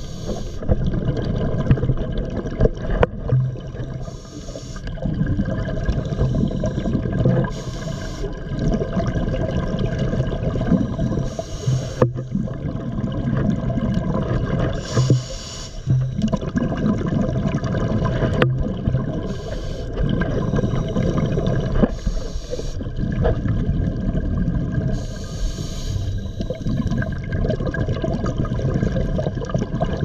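Scuba regulator breathing, heard underwater: a short hiss of inhalation every three to five seconds, with bubbling exhalations in between.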